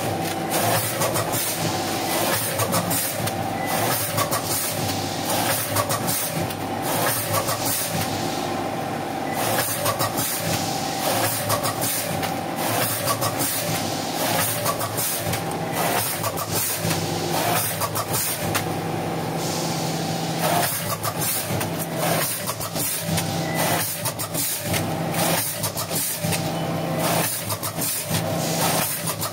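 Vertical packing machine with a four-head weigher running, packing powder into bags: a steady machine hum with frequent clicks and clacks from its moving parts.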